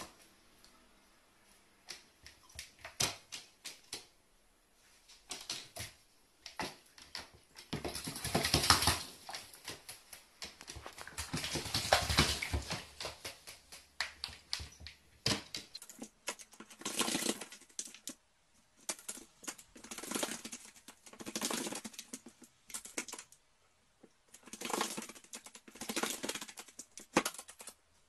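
Carrion crow bathing in a plastic basin of water, splashing and fluttering its wings in repeated bursts of a second or two, with short quieter spells of single drips and flicks between.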